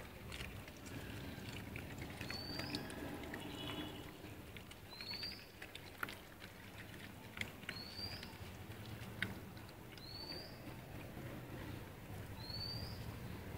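A high, short chirp that rises in pitch, repeated about every two and a half seconds, five times, over scattered faint taps and clicks.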